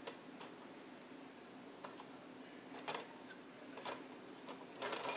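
Scattered light clicks and taps from handling a circuit board and small parts, with a short scraping rustle near the end.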